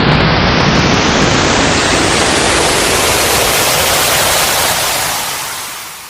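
Synthesized sci-fi sound effect: a loud rushing noise sweep that rises steadily in pitch like a riser, losing its low rumble and fading out near the end.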